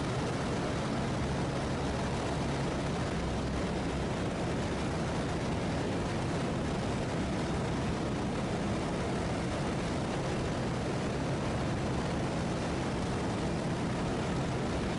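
Just Aircraft SuperSTOL XL's engine and propeller running steadily in flight: a low, even drone under a steady hiss.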